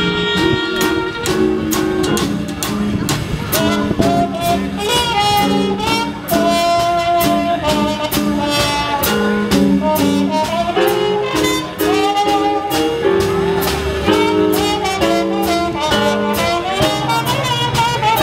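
Small jazz combo playing live: trumpet lead line, with upright bass and a drum kit whose cymbals keep a steady beat. Saxophone joins at the start, and the trumpet is played with a mute later on.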